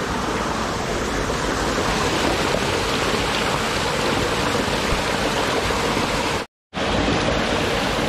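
Small waterfall splashing into a rock pool: a steady rush of falling water that cuts out for a split second near the end.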